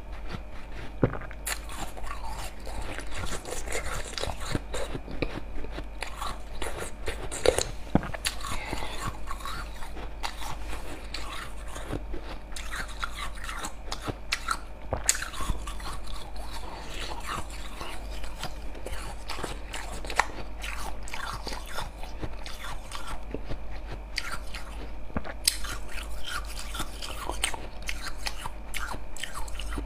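A person biting and chewing slushy ice: a run of sharp, irregular crunches.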